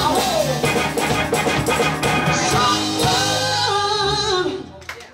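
Live band playing with singing, drums and bass: the closing bars of a song, which stops about four and a half seconds in and rings out briefly.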